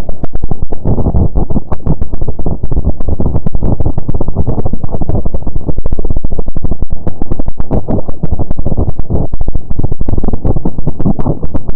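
A weird, strange sound effect: a loud, continuous low rumble full of rapid crackling clicks, muffled, with almost nothing in the treble.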